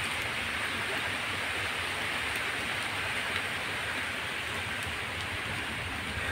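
Steady rain falling on forest foliage, an even hiss with a few faint drop ticks.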